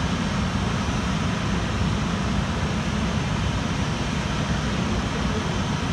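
Steady, muffled rumble of a Japan Airlines Boeing 737-800's turbofan engines at taxi idle, heard through terminal window glass.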